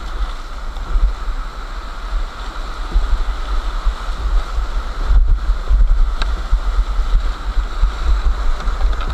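Rushing whitewater of the Loisach's rapids heard from inside a kayak, a steady roar of churning water with a heavy low rumble from the water and wind buffeting the action camera's microphone. It grows louder about five seconds in.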